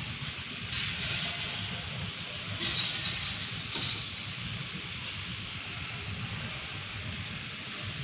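Wire mesh welding machine running at its wire feeding car: a steady low machine hum, with short bursts of hiss about a second in and again around three to four seconds in.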